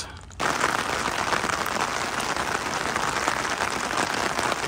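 Steady rain falling, a dense even noise that starts abruptly about half a second in.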